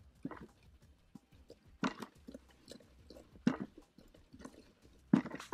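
Damp soil being rubbed by hand through a riddle (sieve) into a bucket: irregular crunching and scraping, with a few louder scrapes, the loudest near the end.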